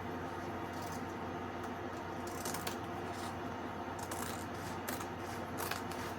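Scissors snipping and a few short clicks and rustles of handling while Velcro strips are cut, over a steady low hum.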